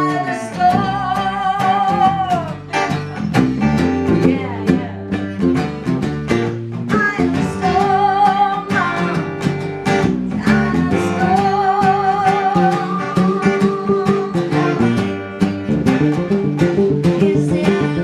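Live acoustic band music: acoustic guitar playing a steady rhythm while a woman sings long, wavering held notes in three phrases.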